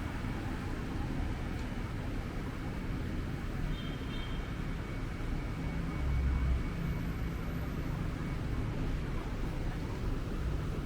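Traffic on a busy city road: a steady rumble of passing vehicles, with one louder low pass about six seconds in.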